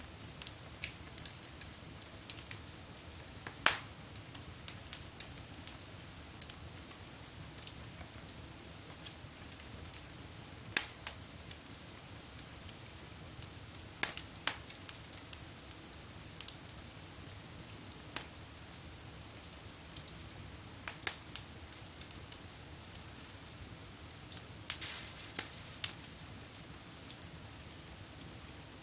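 Wood fire burning in a fireplace, crackling steadily with scattered sharp pops from the logs, the loudest about 4, 11, 14, 21 and 25 seconds in.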